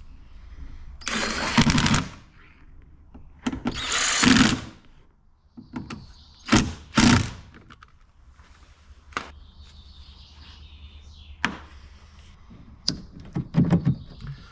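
Hands-on work inside a car door: several short bursts of scraping and rattling, with sharp clicks between them.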